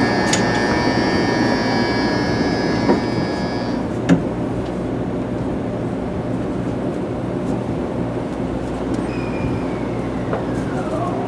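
A 300 series Shinkansen train running, heard from aboard: a steady rumble of the ride. A steady high whine stops suddenly about four seconds in, a couple of sharp clicks come around it, and a tone falls in pitch near the end.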